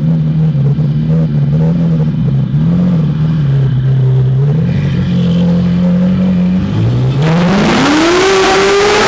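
Ferrari 458 Italia's naturally aspirated V8 running steadily at low revs, then revving hard about seven seconds in, its pitch climbing steeply and its exhaust note growing much louder.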